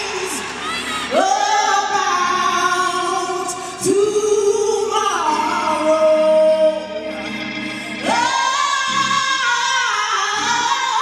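Gospel singing: voices holding long, sustained notes that slide up into each phrase, in several long phrases.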